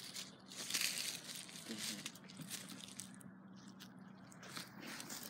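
Irregular crunching and rustling of shoes shifting on dry, matted grass and fallen leaves, heaviest in the first couple of seconds.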